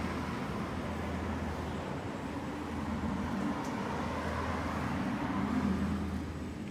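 Street traffic noise: a steady rumble of passing vehicles with a low hum, swelling briefly about five seconds in.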